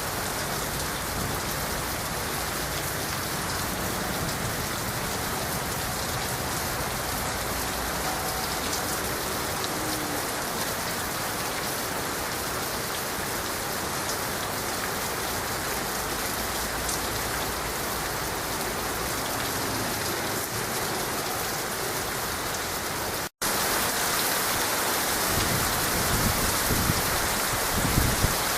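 Heavy rain falling steadily on surfaces, an even hiss of rain. About three quarters of the way through it cuts out for an instant and resumes slightly louder, with a few low thumps near the end.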